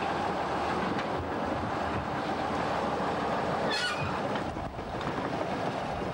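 Small four-wheeled diesel shunting locomotive running slowly past, its engine running steadily. A brief high squeal cuts in about two-thirds of the way through.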